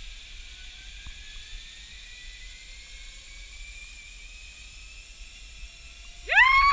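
Zip line trolley pulley running along the steel cable: a faint whine that rises steadily in pitch as the rider picks up speed. Near the end a person lets out a loud yell that swoops up and holds.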